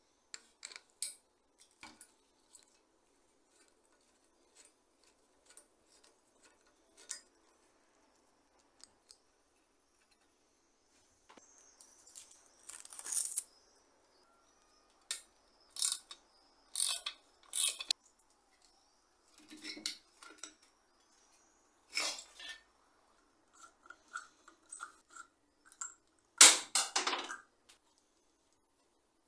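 Bicycle brake parts and tools being handled: scattered short clicks, clinks and scrapes, with a few louder bursts about halfway through and the loudest near the end.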